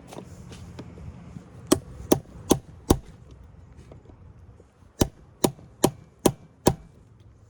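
Hammer blows on a cold chisel, cutting through a lead cell connector beside a forklift battery post: a run of four sharp strikes, a pause, then five more at about two and a half a second.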